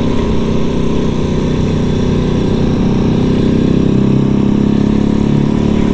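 Janus Halcyon 450's single-cylinder engine running steadily at road speed, with a steady rush of wind.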